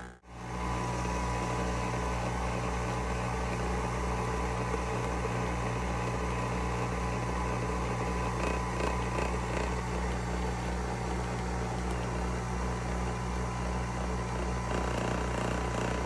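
Nespresso VertuoPlus capsule coffee machine brewing: a steady motor-and-pump hum with a low drone that pulses a few times a second while the machine spins the capsule and pushes water through it.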